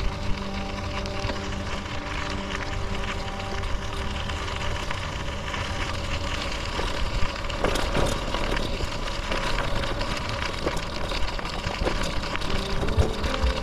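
Bicycle tyres rolling over a gravel trail, with scattered clicks and rattles from the bike and wind rumbling on the microphone.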